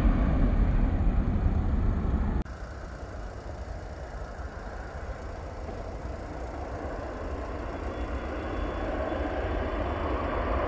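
Jet airliner engine rumble at takeoff power as a Boeing 737 climbs away, cut off abruptly about two and a half seconds in. Then a more distant twin-jet's engines rise steadily in loudness as the airliner accelerates down the runway on its takeoff roll.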